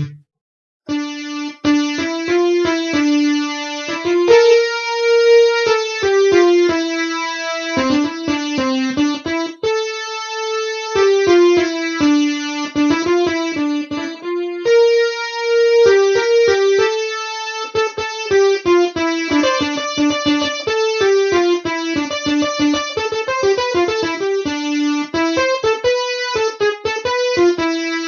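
Korg Kross synthesizer keyboard playing a single-line melody of short and held notes on a cumbia patch, starting about a second in.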